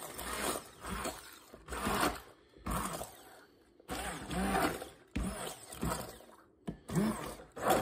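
Handheld immersion blender run in about seven short pulses, roughly one a second, chopping whole peeled tomatoes into a chunky sauce rather than a purée.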